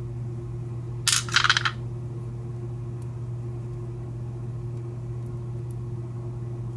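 A brief metallic clatter of small lock parts and a key being handled, about a second in, over a steady low electrical hum.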